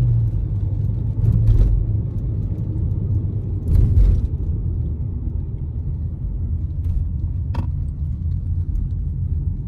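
Car cabin noise while driving on a winding road: a steady low rumble of engine and tyres, with a few short knocks along the way.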